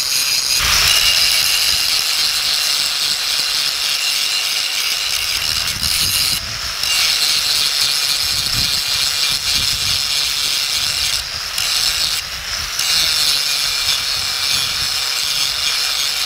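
Angle grinder with a coarse sanding disc grinding rust and pitting off a steel sledgehammer head: a steady high whine with a gritty rasp, easing briefly a few times as the disc comes off the metal.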